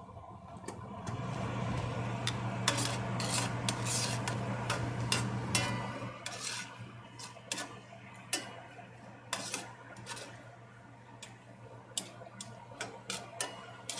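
A utensil stirring and scraping guanciale around a frying pan, then scattered clinks and knocks of metal on the pan, over a steady low hum. The scraping is heaviest for the first several seconds.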